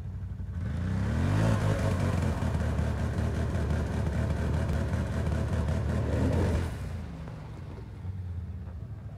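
Can-Am Outlander 650 ATV's V-twin engine revving up as it pulls away, then running hard under throttle for several seconds. It drops to a lower, quieter running about two-thirds of the way through.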